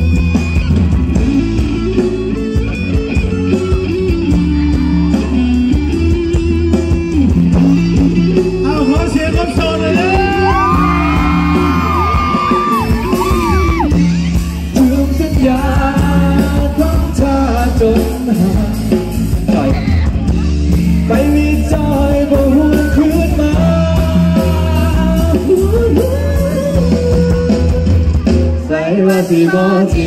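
Live Thai pop song played loud through a concert PA system, with heavy bass, band backing and singing.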